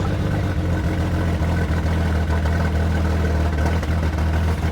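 BMW 335i's turbocharged inline-six idling, its pitch dropping slightly about half a second in. The owners blame the car's poor running on worn spark plugs.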